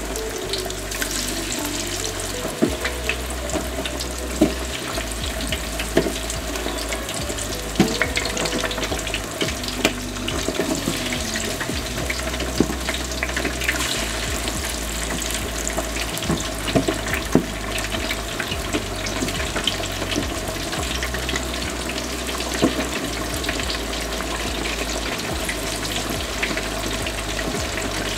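Hot oil in a deep fryer bubbling and sizzling steadily as cornstarch-dusted chicken wings fry, with scattered pops and crackles.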